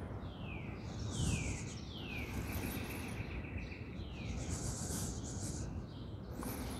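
A songbird calls with several downward-sliding notes, one running into a short trill, over a steady low rumble of outdoor background noise with patches of high hiss.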